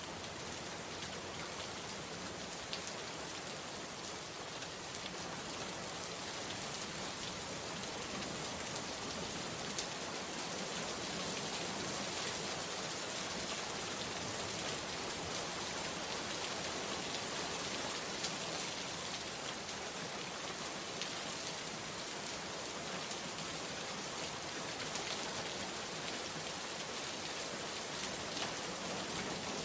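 Steady rain falling, a dense even hiss with scattered individual drops pattering on a surface.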